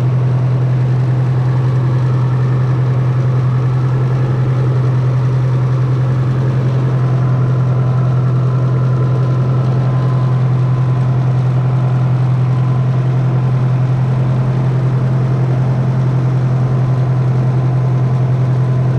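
International 300 tractor engine idling steadily with an even low hum, run to circulate radiator flush through the cooling system.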